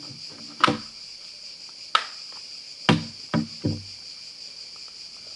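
Five sharp clicks and knocks, the last three close together, of the plastic parts of a Samsung Galaxy J7 phone being handled and its tray fitted back in. A steady high-pitched hiss runs underneath.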